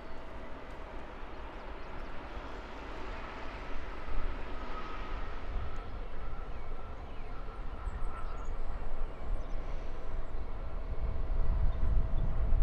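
Jet airliner's engines: a steady whine over a low rumble that grows louder toward the end as the aircraft comes closer.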